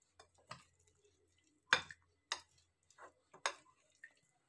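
Spoon clicking and scraping against a bowl while stirring a thick semolina, curd and chopped-vegetable batter: a handful of irregular clicks, the loudest near the middle.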